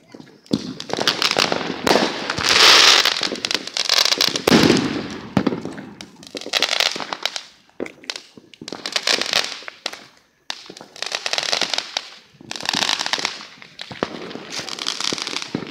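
Firecrackers going off in a series of rapid crackling bursts, each lasting a second or two, with short gaps between them.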